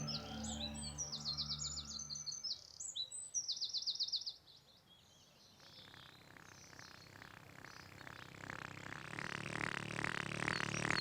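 Songbirds chirping in quick high trills over soft music that fades out. About halfway through, a rapid pulsing sound slowly swells.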